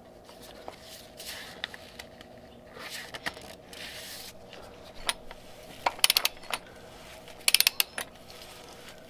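Ratchet wrench on the oil filter housing cap socket, clicking in two quick runs about six and seven and a half seconds in as the housing is snugged up. Softer scraping and rubbing comes before.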